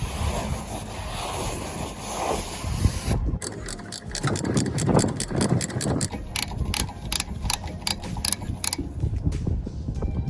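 Ratchet wrench clicking as a bolt is turned, about three clicks a second in the middle of the stretch, with tool and part handling noise around it.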